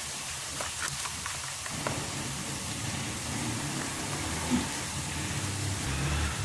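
Sliced onions and garlic paste frying in hot ghee in a metal kadai, a steady rain-like sizzle, with a few light clicks in the first two seconds. The onions and garlic are lightly browned, ready for the spice mix.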